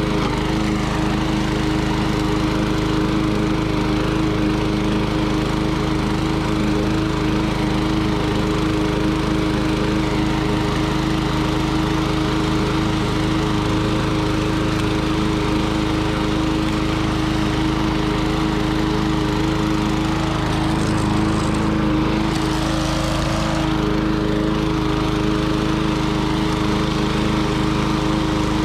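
Lawnboy 10310 push mower with a repowered Tecumseh LV195EA four-stroke engine, running steadily while mowing.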